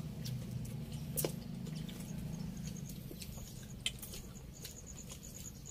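Eating by hand from a pile of rice on a banana leaf: scattered small clicks and smacks of mouths and fingers over a steady low hum. In the second half a faint, rapid, high-pitched chirping runs along.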